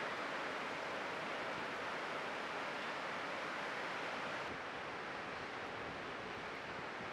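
Steady wash of breaking ocean surf, an even rushing noise of white water. About four and a half seconds in, the sound turns slightly duller.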